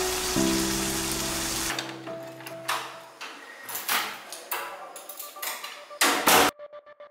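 Steady rain hiss under soft held music notes, cutting off sharply about two seconds in. Then come scattered knocks and clicks of a wooden door and its metal latch being handled, and a brief loud rushing noise near the end.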